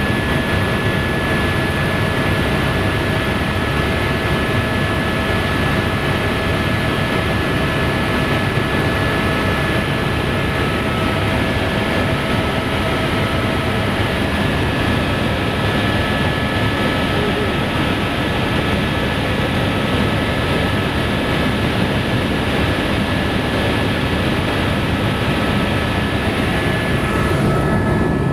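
Tour helicopter in flight heard from inside the cabin: a loud, steady rush of engine and rotor noise with a steady high whine running through it.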